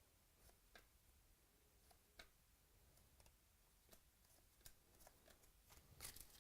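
Near silence broken by faint scattered clicks, with a slightly louder cluster near the end: trading cards and packs being handled.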